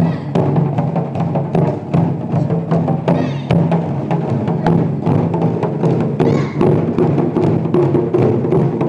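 Japanese taiko drum ensemble playing a fast, driving rhythm of deep drum strokes with sharp strikes.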